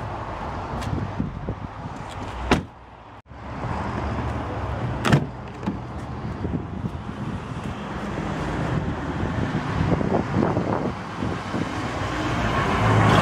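Clicks and thumps from the pickup's cab fittings being handled, the sharpest about two and a half and five seconds in, over a steady low rumble.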